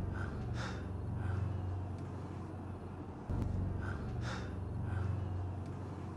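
A steady low rumble of film background sound, the kind PANN hears as vehicles, that starts over about three seconds in so the same few seconds play twice. Short breathy hisses sit on top of it about half a second and about four seconds in.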